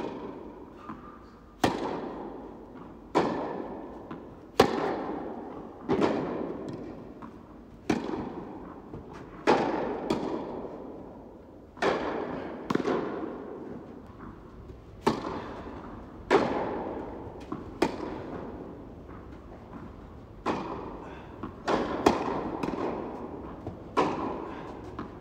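Tennis balls struck by rackets and bouncing on the court in a baseline rally: a sharp pop every second or two, each one ringing on in the long echo of a large indoor tennis hall.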